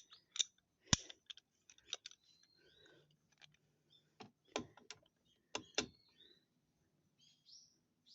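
Hand tools and small metal parts clicking and knocking as they are handled during scooter maintenance, in irregular clicks and taps, the loudest about a second in and twice more a little past the middle.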